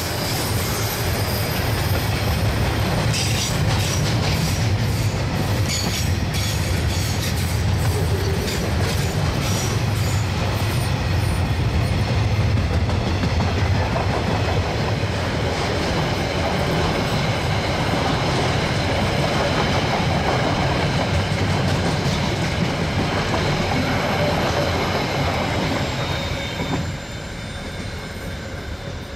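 A KiwiRail diesel-electric locomotive running under power as its train passes, with a steady low engine rumble, wheel squeal and clickety-clack over the rail joints in the first several seconds. The sound drops away about 27 seconds in.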